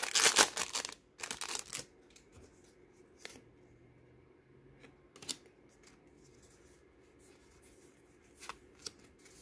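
Foil Pokémon booster pack wrapper crinkling and tearing as it is pulled open and the cards slid out, for about two seconds. Then quiet, with a few soft clicks of the cards being handled.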